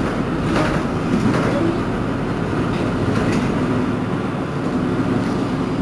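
Mercedes-Benz Citaro C2 city bus standing with its engine idling: a steady low hum, with a few brief sharper noises about half a second and three seconds in.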